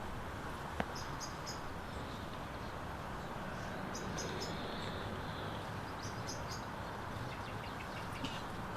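A bird calling outdoors: short high chirps in groups of two or three, repeated every second or two over a steady low background hum. There is one sharp click a little under a second in.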